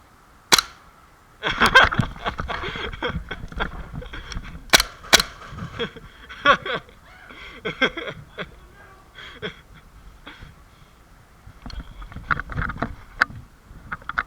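Airsoft guns firing: several sharp single shots, two of them about half a second apart near five seconds in, with a noisy clatter between them.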